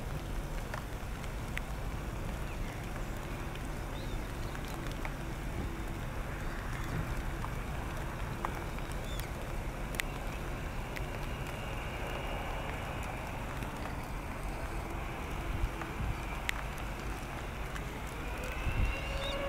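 Boeing 787-8 Dreamliner's turbofan engines running on the runway as a steady low rumble, with a faint rising whine part way through. Near the end several higher whines rise together as the engines spool up for takeoff. Scattered light ticks are heard throughout.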